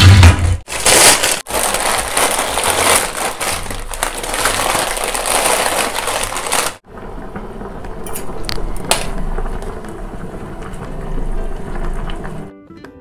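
Plastic snack packet crinkling and rustling loudly as it is handled and opened, stopping abruptly about seven seconds in. After that comes a quieter hiss with a few light clicks.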